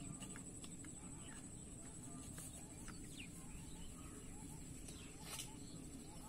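Scattered bird chirps and calls, one sliding downward in pitch about halfway through, over a steady low background rumble and a thin, steady high-pitched tone.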